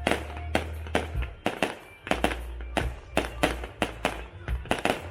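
Fireworks display: a rapid, irregular run of sharp bangs and cracks, several a second.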